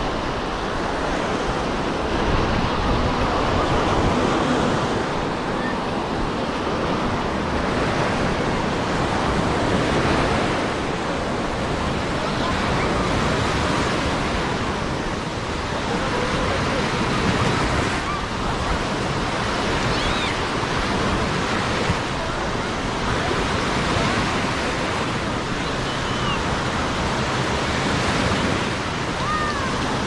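Sea waves washing onto a beach: a steady rush of surf that swells and eases every few seconds.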